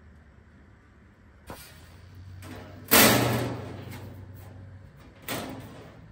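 Thin steel floor panel set down on the steel tube chassis: a loud sheet-metal bang about three seconds in that rings on for about a second, then a smaller knock about two seconds later.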